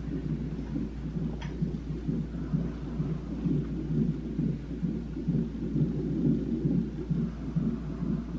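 Fetal heart monitor's Doppler speaker giving a continuous fast, pulsing low whoosh: the baby's heartbeat picked up by the ultrasound transducer.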